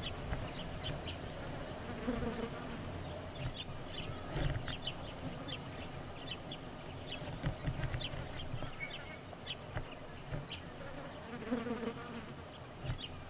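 Flies buzzing close to the microphone in a steady, swelling hum, with many small birds giving short high chips and calls behind.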